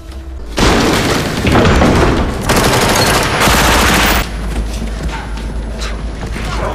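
Automatic gunfire as a film sound effect, in two long bursts. It starts about half a second in and cuts off abruptly about four seconds in, leaving quieter scattered clicks and thuds.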